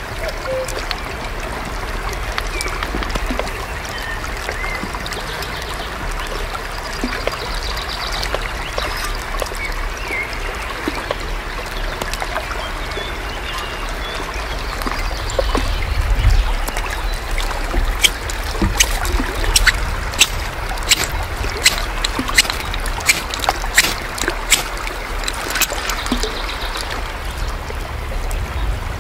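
Steady rushing like running water, with a few short bird chirps. From about two-thirds of the way in comes a string of sharp clicks or knocks, about two a second.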